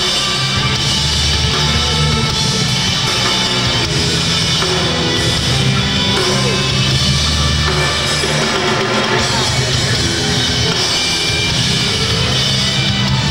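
Rock band playing live and loud: electric bass, electric guitar and drum kit together, without a break.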